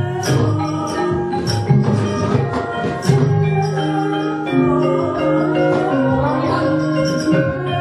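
Javanese gamelan accompanying a wayang kulit battle scene: a lively piece in which bronze metallophones play ringing note patterns over the deeper drum and gong notes. Sharp metallic clashes cut through at irregular moments, typical of the puppeteer's kecrek plates struck to punctuate the puppets' blows.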